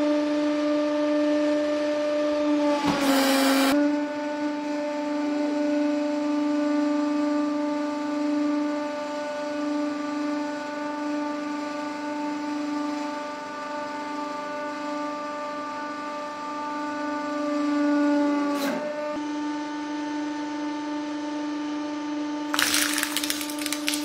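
Hydraulic press pump and motor giving a steady humming whine with several overtones, while the ram crushes plastic objects. The hum is broken by a short loud crackle about three seconds in and a longer loud crunching crackle near the end as a piece gives way under the ram.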